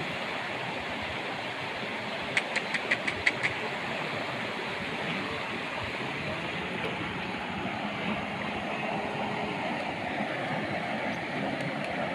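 Steady rush of flowing stream water. About two and a half seconds in, a quick run of about seven short, high chirps or clicks, about six a second, stands out above it.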